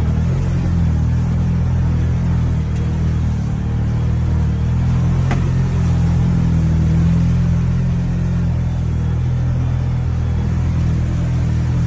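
Off-road vehicle's engine running steadily in a low drone as it drives over rough muddy ground, heard from inside the cab, swelling slightly in the middle, with one brief knock about five seconds in.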